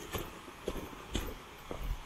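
Footsteps of a person walking along a forest path, about two steps a second.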